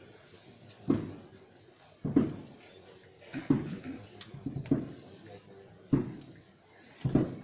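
A drum beating a slow, steady march, one stroke roughly every second and a quarter, each stroke dying away with a reverberant tail.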